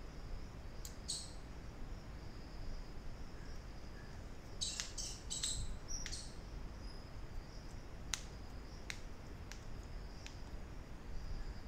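Low steady room hum, with a few faint high chirps about a second in and again around five to six seconds, and a handful of sharp clicks later on.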